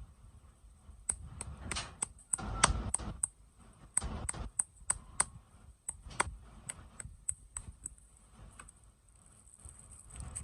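Sweet and toy packaging being handled and opened: irregular sharp plastic clicks and taps, with a denser stretch of crinkling and rattling about two to three seconds in.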